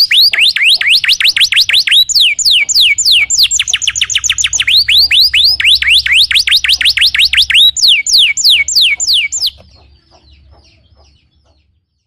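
Domestic canary singing: a fast trill of short downward-sweeping notes, about six a second, in phrases that shift up and down in pitch. The song cuts off suddenly about three-quarters of the way through, leaving a faint low hum.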